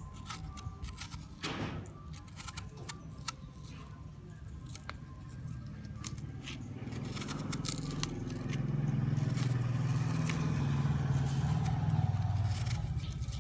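Long fingernails tapping and scratching on an apple's skin, making many quick sharp clicks. From about six seconds in, a low rumble swells up and becomes the loudest sound, easing off near the end.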